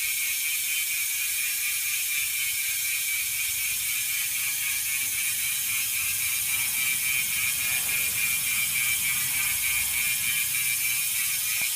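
Hadley SDH rear hub freehub buzzing steadily as the wheel coasts on its own, the rapid clicks of its 72-point engagement pawls running together into an even high buzz. The wheel is still coasting long after being spun up, the sign of a free-running hub with little drag.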